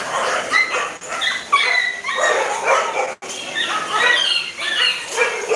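Several puppies yipping and whimpering together, a busy chorus of short, high cries that slide in pitch.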